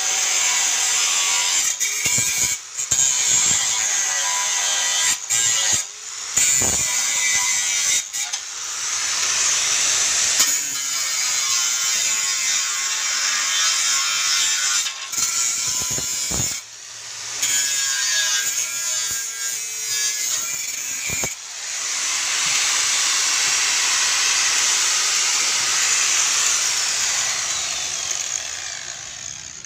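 Bosch GWS 060 angle grinder's abrasive disc cutting into a steel angle iron, a loud harsh hiss with several short breaks. It fades away near the end as the grinder comes off the metal.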